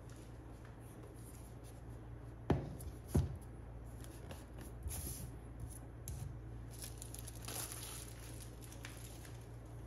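Hands handling packaging: two sharp knocks, the second under a second after the first, then soft rustling and scraping.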